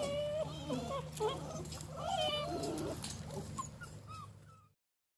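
A litter of eight-week-old basset hound puppies whining and whimpering, many short, rising and falling high-pitched cries overlapping one another. The cries fade out about four and a half seconds in.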